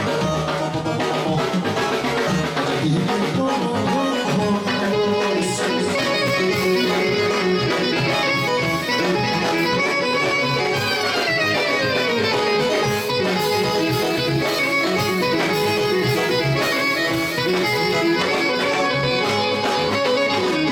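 Live Greek folk dance music: a clarinet plays the lead melody over drum kit and electronic keyboard. About halfway through, the melody makes a long falling run.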